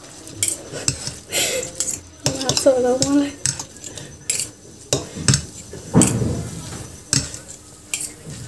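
Utensil clinking and scraping against a bowl in quick, irregular strokes as instant noodles are stirred to mix in chilli seasoning. A brief voice sound comes about three seconds in.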